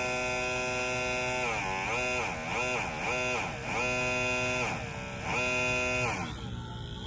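Small electric fuel pump motor whining steadily, with its speed turned down and back up through a speed controller. The pitch dips and returns several times, then winds down and stops near the end.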